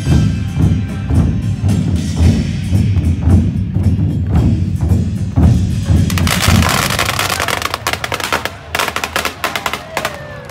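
Lunar New Year procession music led by drums: a steady, heavy drum beat, then about six seconds in a fast run of bright percussion strokes like a drum roll.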